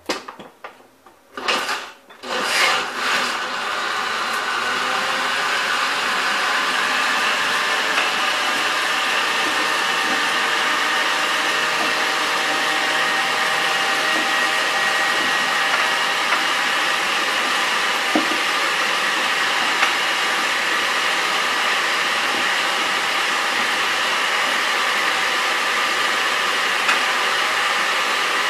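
Countertop blender running steadily, blending cooked brown rice, carrot, a whole egg with its shell and hot chicken broth. A few knocks come first as the jar and lid are set in place, and the motor starts about two and a half seconds in.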